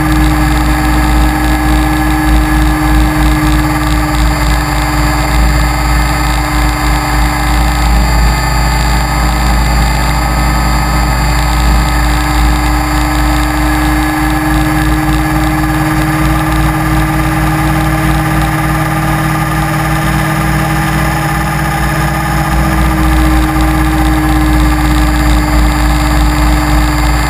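Electric Align T-Rex 550E RC helicopter in flight, heard from a camera on board: a loud, steady whine from its brushless motor, drive gears and rotor, with small shifts in pitch. Under it is a heavy low rumble of wind and rotor wash buffeting the microphone.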